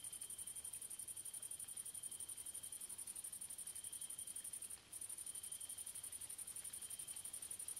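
Grasshoppers stridulating at dusk: a high, fast, evenly pulsing trill that breaks off briefly about five seconds in, over a fainter steady high tone from another insect.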